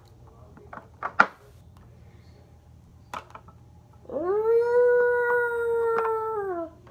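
A person's voice imitating a wolf howl: one long howl about four seconds in that rises, holds steady for about two seconds, then falls away. A few short clicks come before it.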